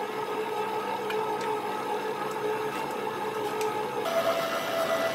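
Electric stand mixer's motor running with a steady whine as it beats cake batter in a stainless steel bowl. The whine steps up in pitch about four seconds in.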